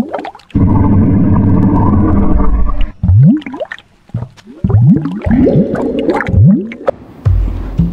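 Intro sound effects: a sustained low buzzing tone, then a string of quick rising swoops.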